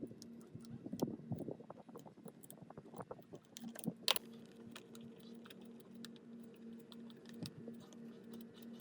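Light clicks and clinks of small hard parts being handled, with a sharp click about four seconds in; after it a faint steady hum with a quick, regular pulse sets in.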